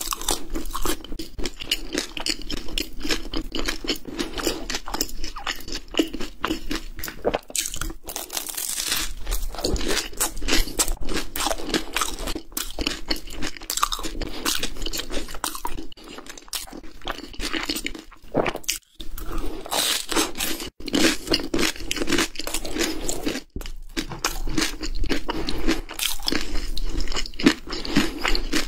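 Close-miked crunching and chewing of a flaky puff-pastry pie, a dense run of crisp crackles with a few short pauses.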